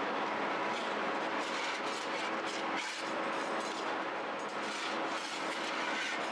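Steady mechanical running noise of bakery machinery, with a faint hum and scattered light knocks and clatter.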